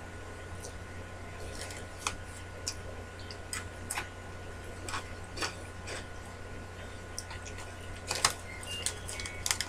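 Scattered short crinkles and crunches from a bag of Cheetos Crunchy being handled and the snack eaten, over a steady low electrical hum.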